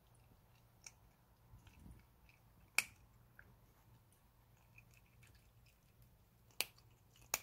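Persian chinchilla cat eating from a ceramic bowl: soft, scattered chewing clicks, with three sharp cracks, one about three seconds in and two near the end.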